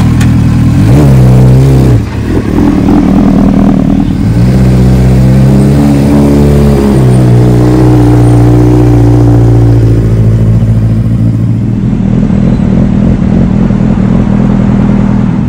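Sport motorcycle engine running: revved up about a second in, then held at raised revs for several seconds with small steps in pitch, dropping back to a lower, rougher idle after about ten seconds.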